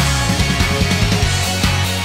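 Background music: an upbeat song with a steady driving beat, kicking back in at the start after a brief break.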